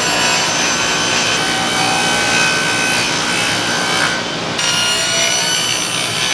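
Table saw running and cutting 3/4-inch Baltic birch plywood: a steady whine with the rasp of the blade going through the sheet. The cutting noise thins for a moment just past the middle, then carries on.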